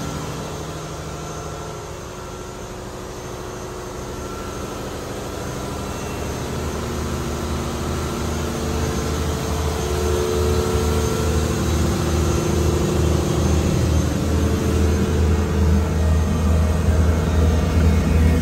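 Engine-room machinery of a longline fishing boat running: a steady low engine hum with a few held tones above it, growing louder through the second half.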